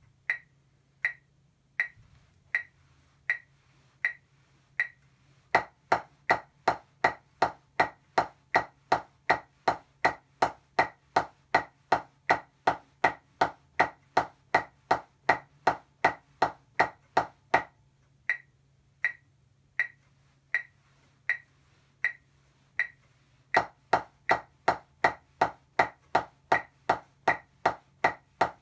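Drumsticks playing even eighth-note strokes on a rubber practice pad, eight on each hand, over a metronome clicking at 80 beats a minute. For about the first five seconds the metronome clicks alone. The playing stops about 18 seconds in and starts again about 23 seconds in.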